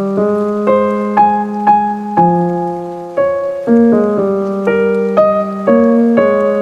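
Slow piano melody, single notes struck about every half second over held bass notes, each note fading after it is struck.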